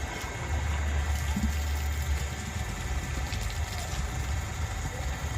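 A water pump's motor running steadily, with a low throb.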